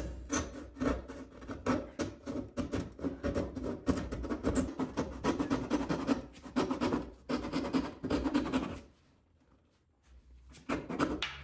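Handsaw cutting a notch into a plywood boat frame in quick back-and-forth strokes, which stop about nine seconds in; a few lighter scrapes follow near the end.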